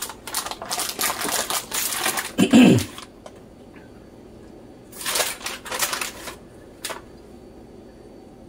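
Rapid clicking and clatter of a utensil against a plastic food tub and board while ground beef filling is scooped onto an empanada dough disc. It comes in two spells: a dense one of about three seconds, then a shorter one about five seconds in, with a single click just after.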